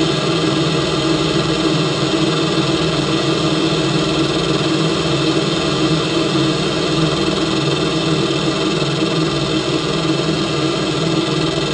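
Automatic rollover car wash equipment running steadily: a constant mechanical hum with a hiss of spray.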